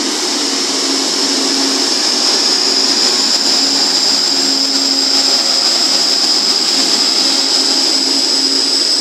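Class 180 diesel multiple unit pulling away under power. Its engine noise carries a loud, steady high-pitched whine, with a second, fainter whine slowly rising in pitch above it.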